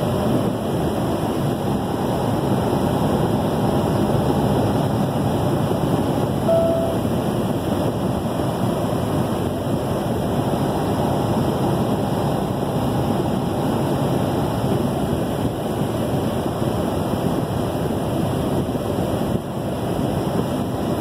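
Steady road and wind noise inside a vehicle's cabin at highway speed, with one short tone a little over six seconds in.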